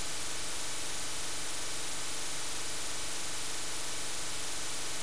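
Steady, even static hiss like white noise, with no separate clicks or knocks in it.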